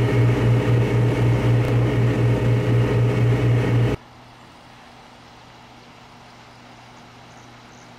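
A vehicle engine running steadily with a regular low throb, then cut off abruptly about four seconds in, leaving only a faint steady hiss.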